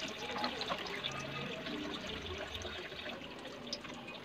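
Hot oil sizzling and bubbling steadily around cauliflower fritters deep-frying in a pan, with many small crackles.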